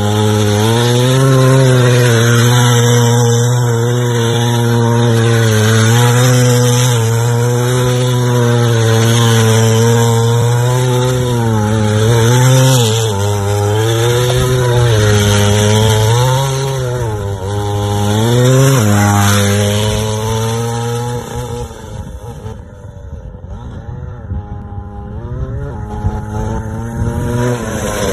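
Small 63cc two-stroke go-kart engine running hard, its pitch repeatedly rising and dipping as the throttle is worked. About twenty seconds in it drops to a quieter, rougher note, and near the end it revs up again.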